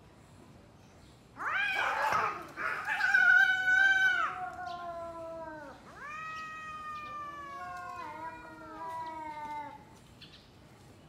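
Domestic cat yowling in a standoff with another cat before a fight. A loud, harsh yowl starts about a second and a half in. After a short gap comes a second long wail that slowly falls in pitch, ending a little before the close.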